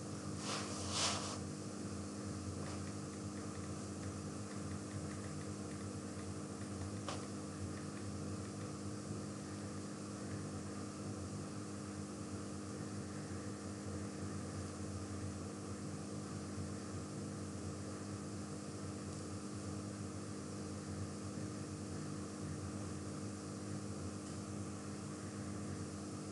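Steady electrical hum with even hiss: room tone through the microphone. There is a short burst of noise about a second in and a faint click near seven seconds.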